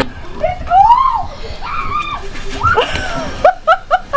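Excited human yelling and screaming: long rising-and-falling whoops, then a quick run of short shrieks near the end.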